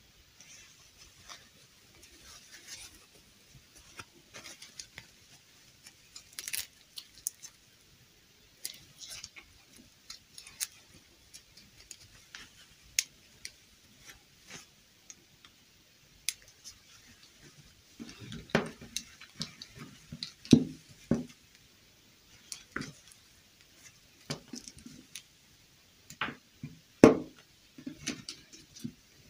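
Plastic fashion dolls being handled and their satin dresses adjusted by hand: scattered small clicks, rustles and knocks, with a few louder knocks in the second half.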